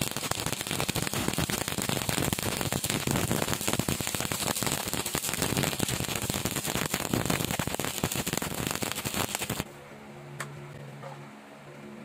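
Stick-welding arc crackling steadily as a bead is run along a square steel tube joint. The arc breaks off suddenly about ten seconds in, leaving only a faint low hum.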